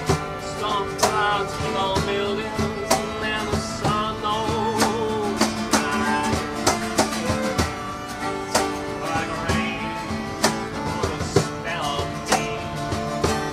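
Acoustic guitar strummed to a steady beat while a fiddle plays a folk melody.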